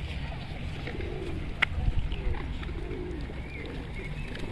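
Birds giving a series of low, wavering cooing calls over a steady low rumble, with a single sharp click about one and a half seconds in.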